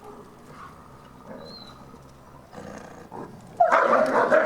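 Captive wolves vocalizing: faint, scattered sounds at first, then about three and a half seconds in a loud outburst of wavering, high whining cries begins.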